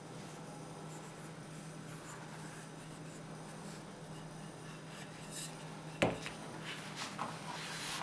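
Hands handling thin sheets of rolled-out dough on a wooden board over a steady low hum. About six seconds in there is a sharp knock, followed by soft rustling and light taps as the dough is lifted and folded.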